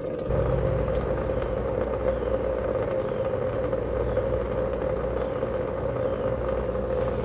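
Gasoline draining in a thin, steady stream from a van's disconnected rubber fuel hose, splashing into a plastic tub. A low rumble runs underneath.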